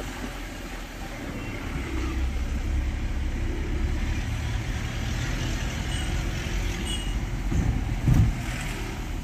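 Car engine and road noise heard from inside the moving car's cabin: a steady low rumble, with one brief louder burst about eight seconds in.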